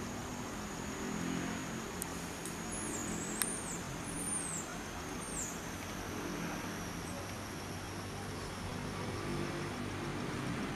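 Steady low hum of a running motor vehicle engine. Four short, high, falling chirps come about three to five seconds in, and a single sharp click about three seconds in.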